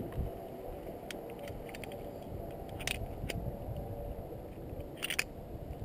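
Steady low rumble of wind on the microphone, broken by a few sharp clicks and clinks from metal harness and trolley gear, the loudest a cluster near the end.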